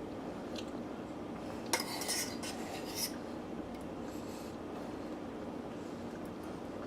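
A spoon clinks and scrapes against a dish a few times, about two seconds in, while sauce is spooned onto a sandwich, over a steady background hiss.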